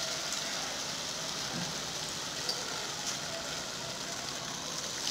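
Hot oil sizzling steadily as bonda fritters deep-fry in a kadai, with a few faint pops.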